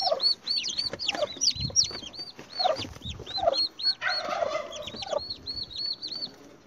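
Turkey poults peeping steadily in high, arched chirps, about three a second, as they are picked up by hand. Short lower clucking calls come from the turkey hen now and then, with a louder call about four seconds in, and there is some handling rustle in the straw.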